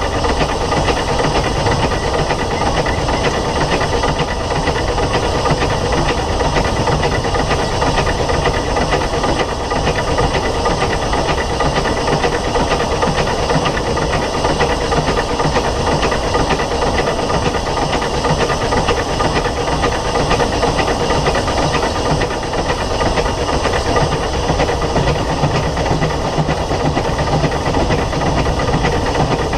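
Steady, loud hiss of steam from the SECR H class tank engine No. 263, heard close up on the locomotive.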